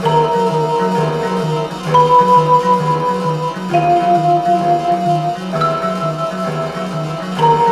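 Cartoon background music: a slow melody of long held notes, changing about every two seconds, over a quick repeating two-note figure in the bass.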